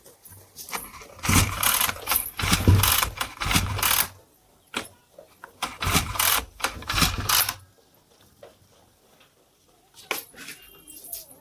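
Two rattling bursts of small petrol engine cranking, each two to three seconds long, as the engine is pull-started without settling into a steady run.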